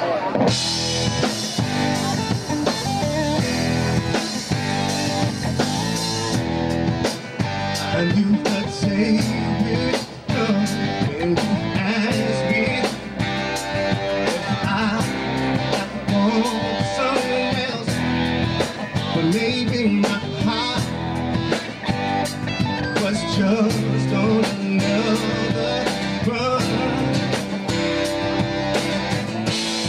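A rock band playing live: electric and acoustic guitars, bass guitar and drum kit, with a steady beat.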